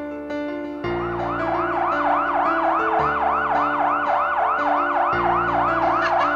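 Instrumental background music: sustained keyboard chords over a slow bass line. About a second in, a fast repeating synth figure joins, swelling up and down about four times a second.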